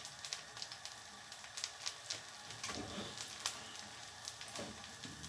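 Bread slices frying in olive oil in a frying pan: a steady, fairly quiet sizzle with many small crackles and pops.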